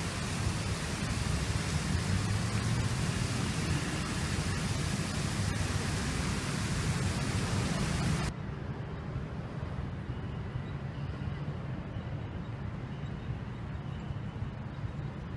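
Water cascading down a stepped fountain, a steady full hiss of splashing water. About eight seconds in it cuts off abruptly to quieter, duller city street ambience with traffic hum.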